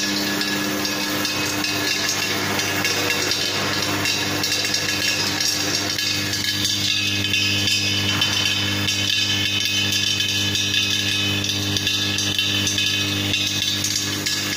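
DH50-I screw oil press running while pressing peanuts: a steady motor hum under a continuous dense clatter.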